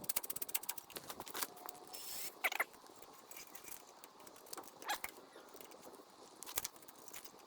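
Hand tools and metal hardware being worked on a pipe clamp: a quick run of rapid clicks in the first second or so, then a few scattered sharp clicks and scrapes.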